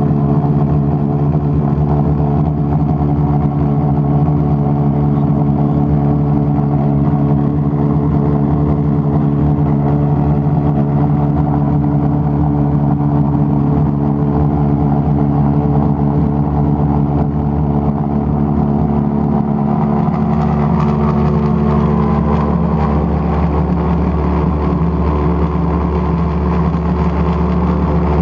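Propane-fuelled pulsejet engine running continuously: a loud, steady drone at a fixed pitch, with aviation smoke oil being injected to make smoke. Its tone changes about twenty seconds in.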